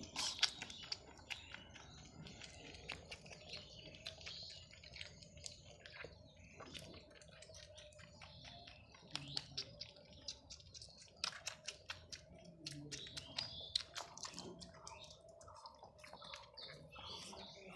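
Baby goat suckling milk from a feeding bottle: irregular wet clicks and smacks of sucking, with a few louder ones in quick clusters.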